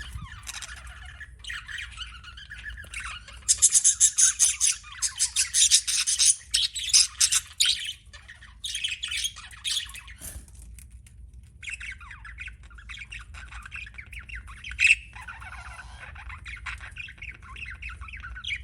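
Budgerigar chirping and warbling: a loud run of rapid chirps in the first half, then softer, continuous chatter with one sharp chirp about fifteen seconds in.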